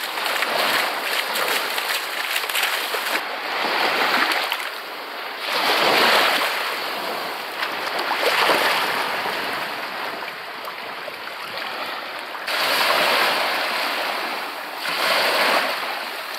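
Sea waves washing in and drawing back in the shallows, a steady rush that swells and eases in several surges a few seconds apart.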